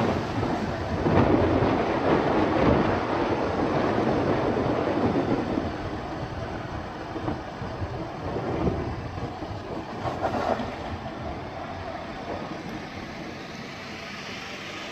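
Road and wind noise of a moving car, a steady rushing rumble that is loudest at first and dies away over the second half.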